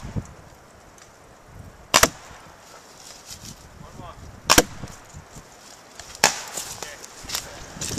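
Paintballs from a pump paintball marker smacking into a perforated board just beside the microphone: three sharp cracks about two seconds apart.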